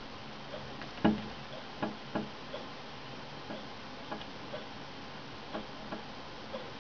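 Chaffinch tapping at window glass: about ten short, sharp taps at irregular intervals, the loudest about a second in.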